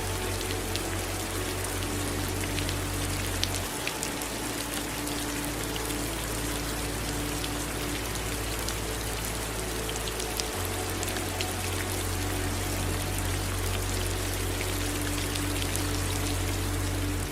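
Steady rain falling, with individual drops ticking sharply here and there, over running water and a low steady rumble.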